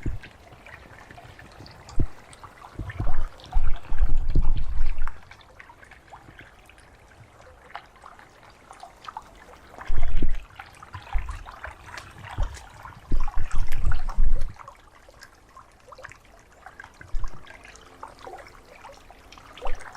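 Water trickling and dripping from melting wet snow, with many small sharp drips. Several loud low rumbling bursts come and go, the longest about a third of the way in and again near three-quarters through.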